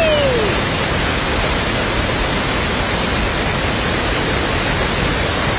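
A steady, loud rushing noise with no pitch, like a constant hiss or roar. In the first half second a falling whistle-like tone fades out over it.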